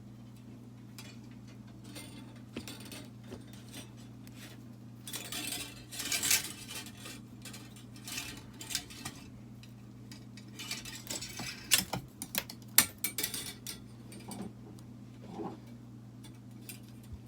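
Small metal tools and wire clinking, tapping and scraping on a workbench, busiest in two spells about five and eleven seconds in, over a steady low hum.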